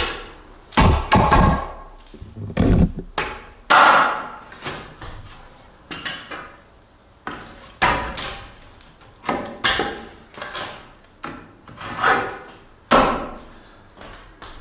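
Hammer striking repeatedly, about a dozen sharp blows roughly a second apart, each ringing briefly.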